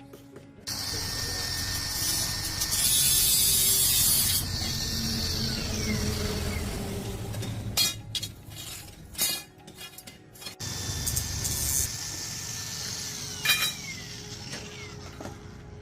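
A small electric motor running in two long stretches, each with a faint falling tone as it slows, with a few sharp clicks in between.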